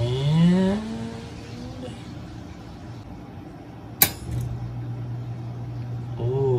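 Well pump pressure switch clicking closed about four seconds in, and the pump starting at once with a steady low hum. It cuts in as the pressure falls to about 40 PSI while water is being drawn. A rising whine sounds in the plumbing in the first second or so.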